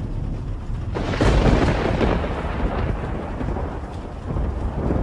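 Thunder with rain: a steady low rumble, then a loud crack about a second in that rolls off over the next few seconds, and a second swell of thunder near the end.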